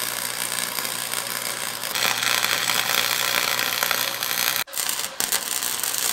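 Harbor Freight wire-feed welder arc crackling steadily while angle iron is tack welded, stopping briefly about four and a half seconds in before the arc is struck again.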